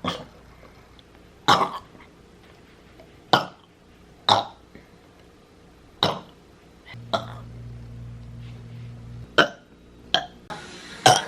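A woman burping over and over: about nine short burps, one every second or two.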